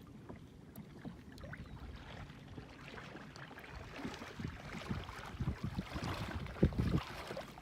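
Water sloshing and splashing around a kayak, getting louder about halfway through, with a few heavier low splashes or thumps near the end.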